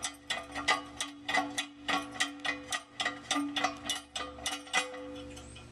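Quick repeated clicking, about three clicks a second, as the float of a gummed-up Fluidmaster 400A toilet fill valve is worked up and down by hand inside the tank, its stiff mechanism clicking on each stroke over a steady ringing tone; the clicking stops about five seconds in.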